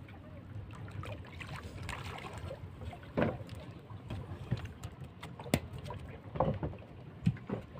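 A hooked catfish is hauled from the river onto a wooden boat deck and flaps against the planks: a few sharp, irregular thumps, the clearest in the second half, over a steady background of river water.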